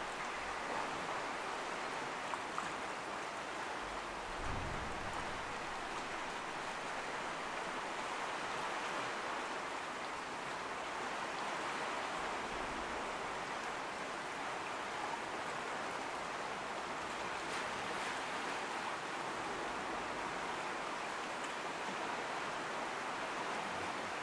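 Steady rush of sea surf washing against the rocks below the cliffs, with a couple of faint clicks about two and a half seconds in.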